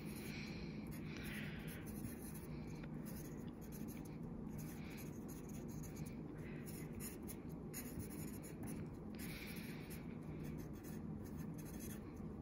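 Pencil writing on paper, scratching in short, uneven strokes as words are written out.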